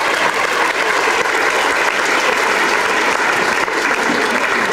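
Audience applauding: a dense, even clapping held at a steady level.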